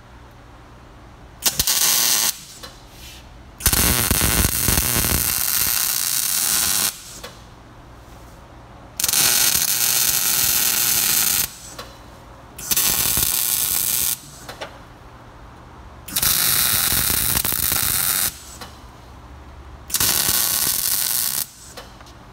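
MIG welder arc crackling and hissing in six separate bursts, each from under a second to about three seconds long, as a bolt is welded onto a steel plate.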